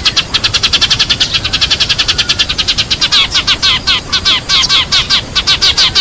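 A flock of sparrows chirping nonstop, with fast overlapping chirps at about ten a second. This is a sparrow flock-call recording of the kind played as a lure to draw sparrows in.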